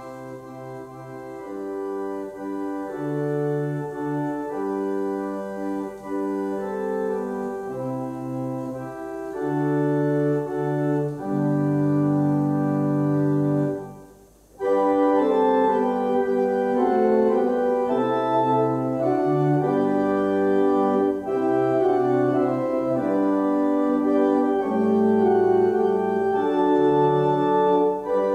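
Church organ playing a hymn tune in sustained four-part chords. About halfway through it stops briefly, then starts again louder and fuller.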